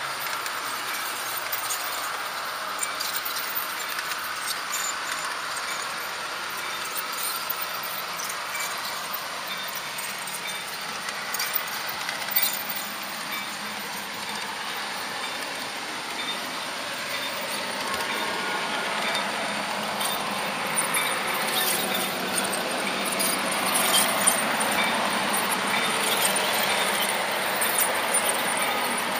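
Märklin HO-scale model train running along its track, heard from on board: a steady whir of wheels and motor with scattered light clicks, the clicks coming more often and the sound growing a little louder in the last ten seconds.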